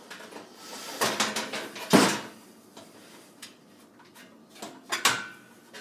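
Rear side panel of a Thermaltake Core V71 PC case being freed from its thumb screws and taken off: a few knocks and scrapes of the panel against the case frame, the loudest about two seconds in and another near the end, with small clicks between.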